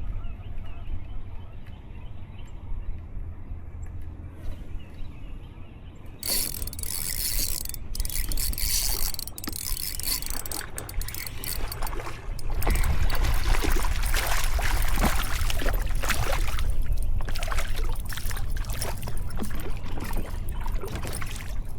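Water splashing and trickling around a kayak, with a low rumble of wind on the microphone. The splashing becomes busier and louder about six seconds in, and the rumble grows stronger about halfway through.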